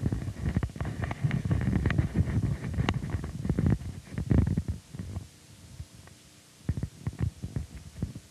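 Irregular low rumbling with crackling clicks and thumps, dense for about the first five seconds and then thinning to scattered clicks over a faint hiss.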